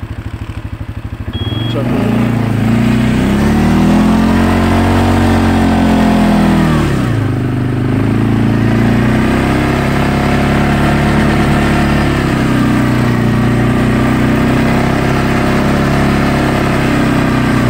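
CFMoto ATV engine pulling through deep snow, heard from on board: it revs up about two seconds in, its pitch climbing and then falling away around seven seconds, then runs steadily under load.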